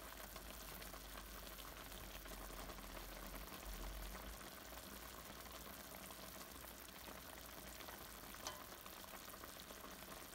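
Chicken adobo simmering in a stainless steel pot, a faint steady sizzle and bubbling of the soy sauce, while a cooking spoon stirs the chicken and onion slices. One light knock about eight and a half seconds in.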